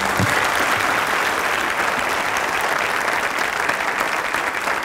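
Studio audience applauding steadily, the clapping starting abruptly at once.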